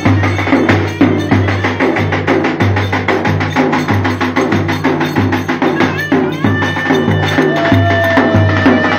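Live Turkish wedding dance music: a steady low drum beat about twice a second under fast clicking percussion. About six seconds in, a held, wavering high melody line comes in over the beat.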